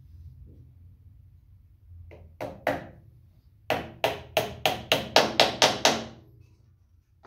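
Small hammer tapping small nails into the corner of a solid-wood box: two sharp blows about two and a half seconds in, then a quick run of about nine blows at roughly four a second, growing louder.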